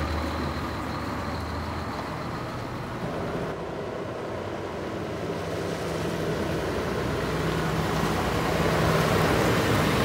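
Scania P380 truck's diesel engine running, getting louder toward the end.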